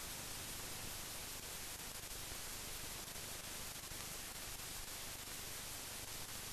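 Steady hiss of an old film soundtrack, with no other sound in it.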